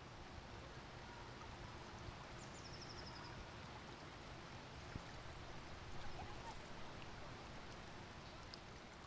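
Faint outdoor ambience: a steady rushing hiss with a few short, high chirps, including a fast trill about a third of the way in.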